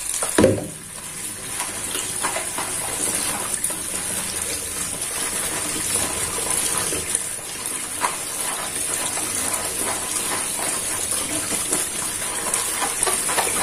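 Tap water running steadily while cut taro pieces are washed clean by hand, with a few sharper knocks, the loudest about half a second in.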